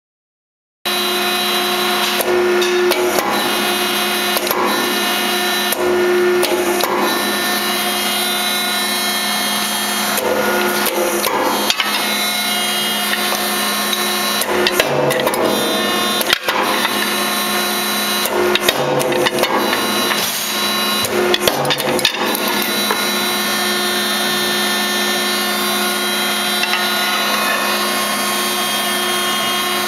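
Metal Muncher 50-ton hydraulic ironworker running: its hydraulic pump motor gives a steady hum that starts about a second in, with a series of sharp clanks and knocks through the first two thirds as the ram works steel flat bar.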